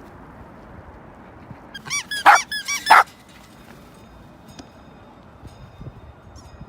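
A dog giving a quick run of short, high yips about two seconds in, then faint clicks.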